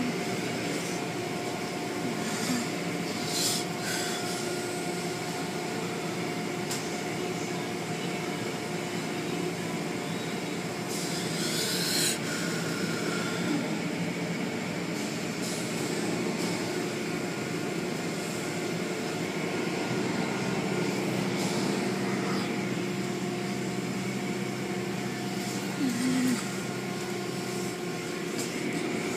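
Automatic car wash machinery running: a steady mechanical hum with a few short hissing bursts, and a deeper hum that joins about two-thirds of the way through.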